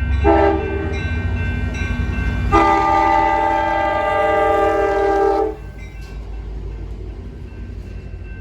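Train air horn sounding a chord of several notes: a short blast at the start, then a long blast of about three seconds that cuts off sharply, over a steady low rumble.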